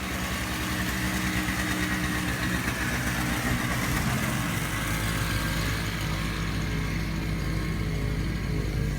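Toro 2000E single-stage snowblower engine running steadily.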